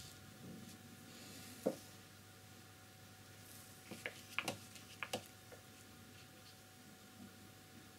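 Quiet room tone broken by one soft knock about one and a half seconds in, then a quick run of small clicks and taps between four and five seconds in: a paintbrush and paint palette being handled on the table while painting.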